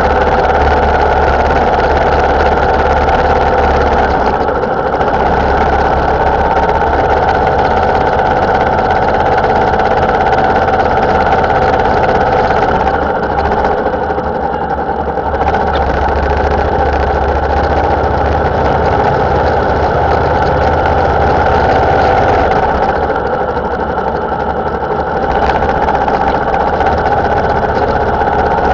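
Motorcycle engine running steadily under way, with wind and road noise. The sound eases briefly a few times.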